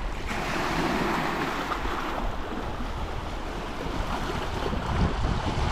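Lake water washing against the bank in a steady rushing hiss, with some wind.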